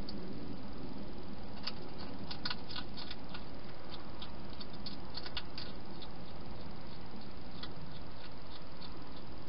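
A wild hedgehog eating from a bowl inside a plastic feeding box: small irregular clicks and crunches as it chews, coming in two busy clusters and then a few stray ones near the end, over a steady hiss.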